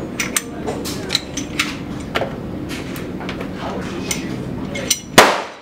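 Metal parts of a Glock pistol being handled during a barrel change: a run of small metallic clicks and clinks, then one sharp, loud snap near the end.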